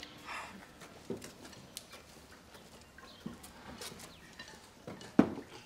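Scattered light clicks and knocks of chopsticks and spoons against porcelain bowls as people eat porridge at tables, with the sharpest knock about five seconds in.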